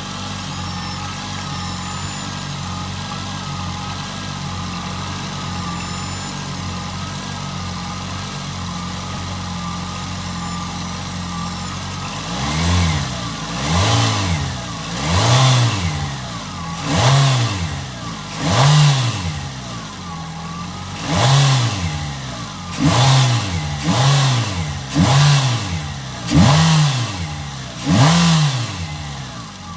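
Nissan Altima engine idling steadily, then blipped about ten times in quick succession, each rev rising and falling back before the next, and settling back to idle near the end.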